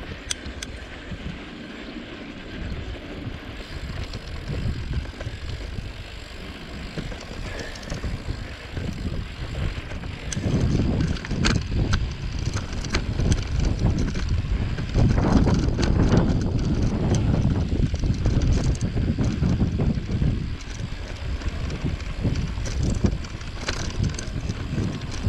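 Mountain bike ridden over a rough dirt trail: knobby tyres rumbling over dirt and rocks, with sharp knocks and rattles from the bike over bumps and wind buffeting the microphone. It grows louder and rougher about ten seconds in.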